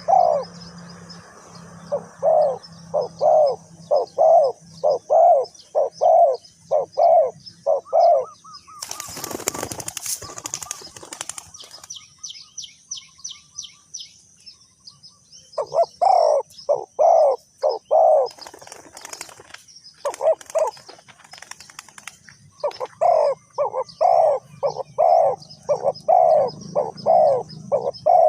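Spotted doves cooing in runs of quick, evenly repeated low notes, broken about nine seconds in by a loud burst of wing flapping lasting a few seconds, after which the cooing resumes. Faint high chirping goes on underneath.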